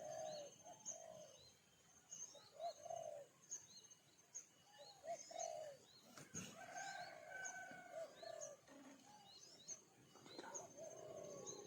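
Birds calling faintly: short low arched notes repeated every second or so, with many thin high chirps over them.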